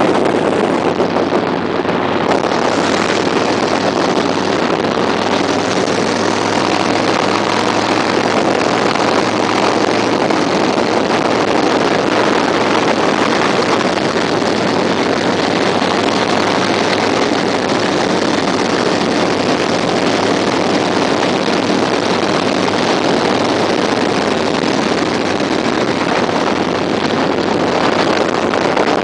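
Wind rushing over the microphone, with OCC custom choppers' engines running steadily beneath it at highway cruising speed.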